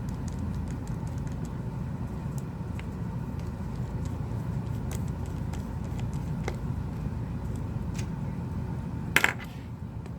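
Steady low hum of a heat gun's blower, with light ticks of a plastic pick and phone parts being handled. About nine seconds in there is a sharp loud click, after which the hum drops lower.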